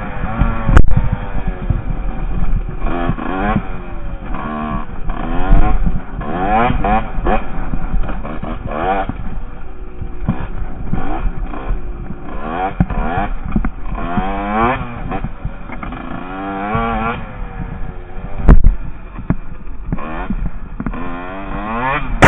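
Husqvarna WR 150 two-stroke dirt bike engine being ridden, its pitch rising and falling again and again as the throttle is worked on and off. There are sharp knocks about a second in and again near the end.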